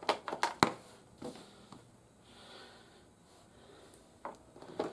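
Hard plastic parts of a Teenage Mutant Ninja Turtles Mutant Module toy vehicle clicking and tapping as they are handled and pressed into place: a quick run of clicks at the start, the loudest just over half a second in, then a few scattered clicks, with more about four seconds in.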